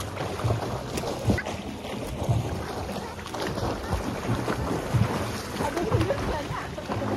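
Pool water splashing and lapping as a swimmer swims front crawl close by, with irregular low thumps of water and wind buffeting the microphone.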